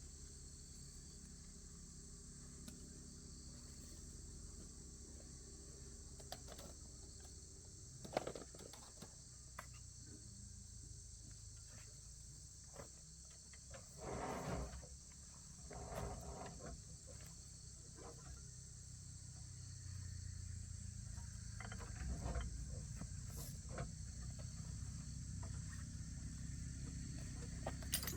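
Steady chorus of crickets chirping, with a low rumble underneath and a few scattered faint knocks and scrapes.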